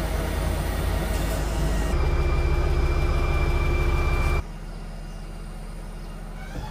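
Delivery truck's engine running at raised revs to drive its loader crane, a high steady whine joining about two seconds in. A little over four seconds in it drops abruptly to a quieter steady hum.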